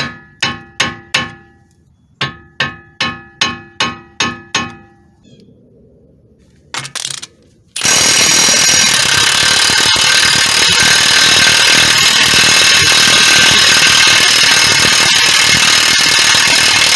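Two quick series of ringing metal-on-metal hammer blows, then, about eight seconds in, an impact wrench rattling continuously to break loose the 30 mm front axle nut on a Toyota Sienna.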